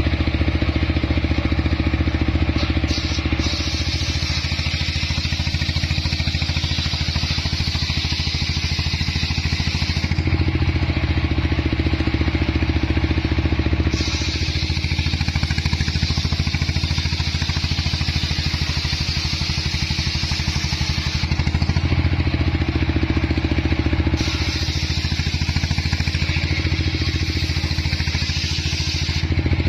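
Engine-driven homemade circular sawmill running steadily, its large blade ripping lengthwise through a jowar (Senna siamea) log in three long cuts, with short stretches between where only the engine and free-spinning blade are heard while the log is repositioned.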